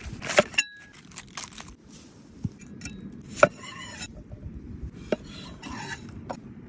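Cooking utensils and cookware clinking, tapping and scraping in scattered strokes, with one short ringing clink about half a second in and a sharp knock about three and a half seconds in.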